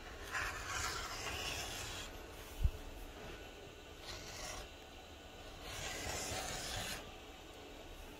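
Rotary cutter blade rolling through fabric on a cutting mat: three rasping cutting strokes, the first and longest lasting nearly two seconds. A brief low thump about two and a half seconds in.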